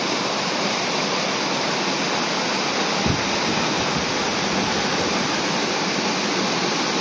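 Small waterfall on a mountain burn splashing into a rock pool: a steady rush of water, with one short low thump about three seconds in.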